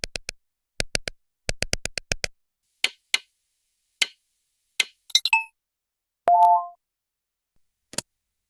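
A run of clean digital UI button click sound effects: sharp clicks in quick clusters of two to four, then single clicks. Just after five seconds come a few short high blips, and about six seconds in a brief two-tone beep.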